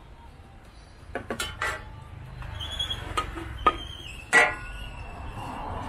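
Metal spatula scraping and knocking against a stainless steel wok while stir-frying. There are several sharp clanks, and the loudest, about four seconds in, rings briefly.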